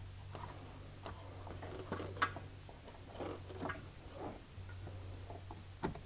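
Light clicks and clinks as a 6-volt car battery is set in place and its terminals and cables are handled and tightened, with a sharper click about two seconds in and another near the end, over a steady low hum.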